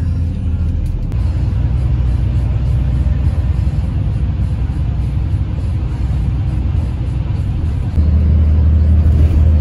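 Steady low engine and road rumble heard inside a moving coach bus, growing louder about eight seconds in.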